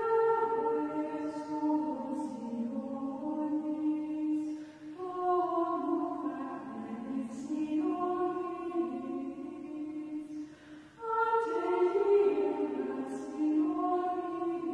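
Benedictine nuns singing Gregorian chant in unison, a single melodic line of women's voices in long held notes. The phrases break briefly for breath about five and eleven seconds in.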